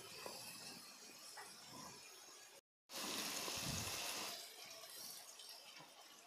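Onions, capsicum and sauce sizzling faintly in a hot nonstick kadai while a silicone spatula stirs them. The sound breaks off for a moment near the middle, then the sizzle comes back louder for a second or so before settling again.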